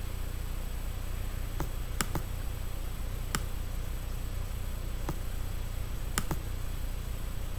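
A few sharp computer mouse clicks, scattered singly and twice in quick pairs, over a steady low hum.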